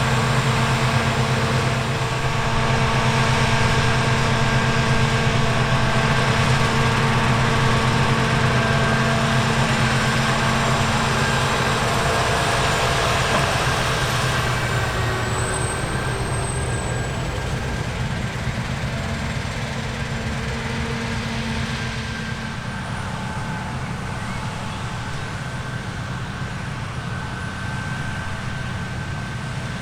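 Heavy farm machinery running: a large diesel engine holding a steady speed, with a faint high whine, growing gradually quieter over the second half.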